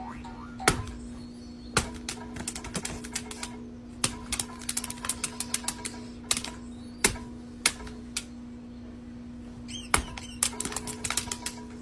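Irregular sharp clicks and taps, some coming in quick clusters, over a steady hum.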